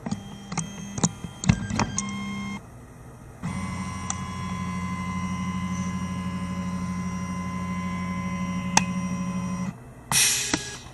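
Electric motor of a motorized lab gantry driving its carriage along a lead-screw rail: a few short clicking, whirring moves in the first couple of seconds, then a steady electric whine for about six seconds that stops suddenly, and a brief hiss near the end.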